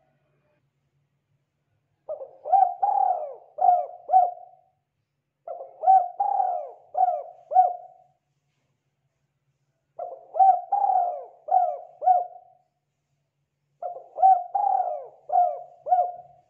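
Spotted dove cooing: four phrases, each a run of about five coos lasting two to three seconds, with a second or so of silence between phrases.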